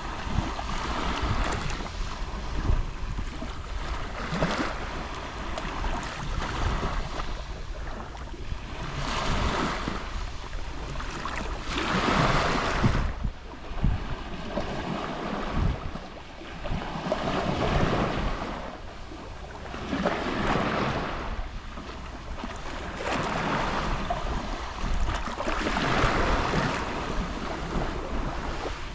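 Gentle waves lapping on a Mediterranean shore, each wash swelling and fading every few seconds, the strongest about twelve seconds in. A steady low wind rumble on the microphone runs underneath.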